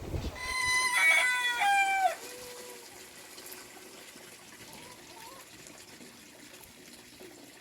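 A rooster crowing once: one call of about a second and a half that ends on a lower, falling note. After it, faint running water.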